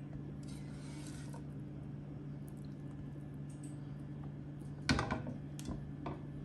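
Serving utensils handling food on a plate over a steady low hum: a faint scrape in the first second or so, then a sharp clatter of utensil against dishware about five seconds in, followed by two lighter knocks.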